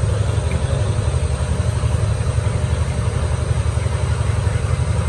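Metal lathe running with a truck axle shaft and its welded flange spinning in the chuck: a steady low drone with a fast, even flutter.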